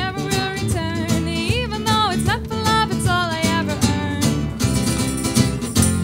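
Live band: a woman singing over guitar accompaniment. About four and a half seconds in, the accompaniment turns fuller and brighter.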